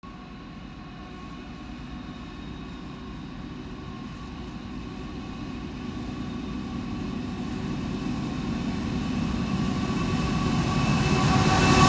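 Freight train headed by diesel locomotives NR99 and G526 approaching, its engines' drone and a steady whine growing louder.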